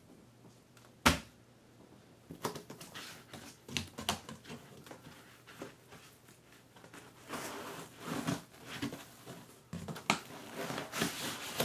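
Printer box and packaging being handled during unboxing: a sharp knock about a second in, then scattered clicks, rustles and scrapes.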